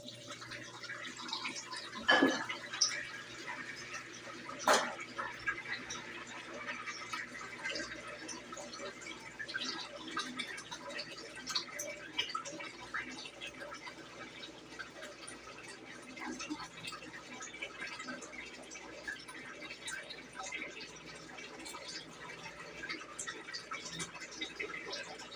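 Water splashing and dripping inside a Brastemp BWG11 washing machine's drum during a wash cycle, a steady patter of small drips. Two sharp knocks come about two and four and a half seconds in.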